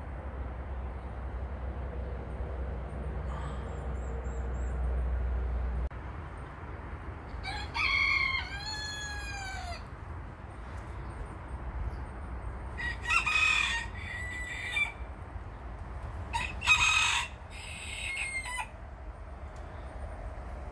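A rooster crowing three times: one long call about eight seconds in, then two more about five and nine seconds later. A low rumble underneath stops suddenly about six seconds in.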